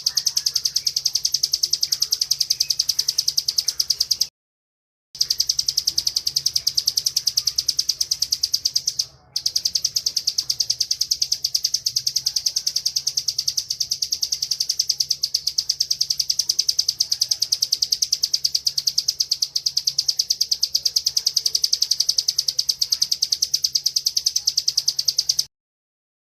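Bar-winged prinia (ciblek) singing its rapid, high, buzzing trill on and on, with a short break about four seconds in and a brief dip a few seconds later, stopping just before the end.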